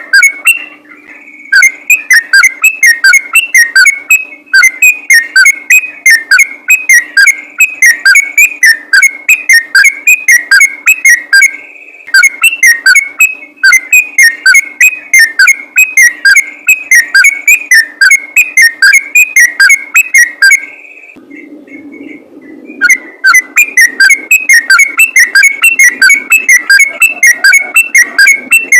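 Sooty-headed bulbul (trucukan) singing a fast, continuous run of quick whistled, chattering notes, very loud and clipped. The song breaks off briefly a few times and pauses for about two seconds past the middle before resuming.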